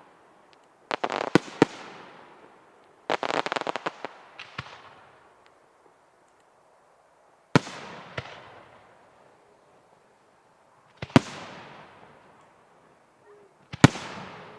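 Fireworks bursting: two quick clusters of crackling bangs about one and three seconds in, then three single loud bangs a few seconds apart, each trailing off in a long echo.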